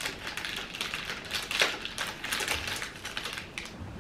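Plastic candy packaging crinkling and clicking irregularly as it is handled and opened, loudest about a second and a half in.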